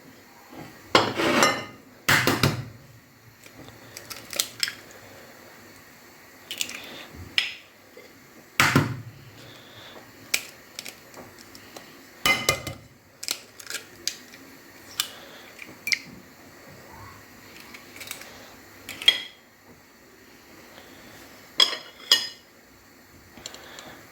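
Kitchen bowls, cups and utensils knocking and clinking in scattered single strikes with short gaps, a couple of them louder than the rest.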